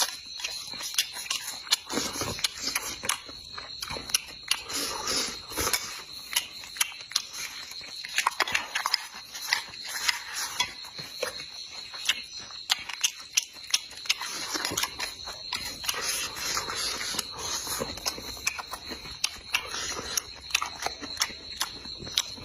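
Eating sounds: chewing, with many short sharp clicks scattered throughout and a steady high-pitched whine behind them.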